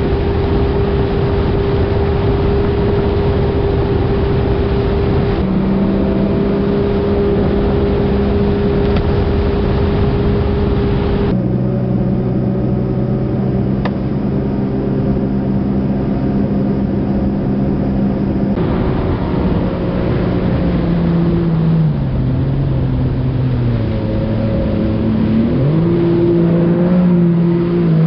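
Jet ski engine running at speed over the rush of water, its pitch shifting abruptly a few times and, near the end, dipping and then climbing again.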